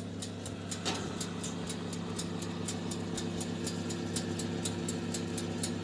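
Electric oven (OTG) running with a steady motor hum, while its mechanical timer ticks evenly about three times a second.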